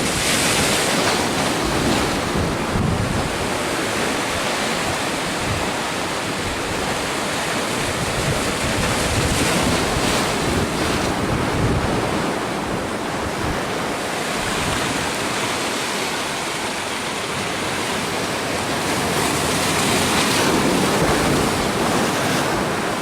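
Storm waves breaking and surging in on the shore, swelling louder every few seconds, with wind buffeting the phone's microphone.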